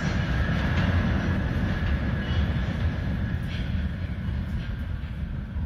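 R68 subway train pulling away down the tunnel, its low rumble and a thin steady whine fading as it recedes, with a few faint clicks from the wheels over the rails.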